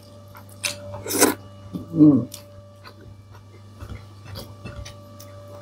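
Eating noises at a meal: scattered small clicks and rustles, a louder noisy rustle about a second in and a short low 'mm'-like sound about two seconds in, over a steady electrical hum.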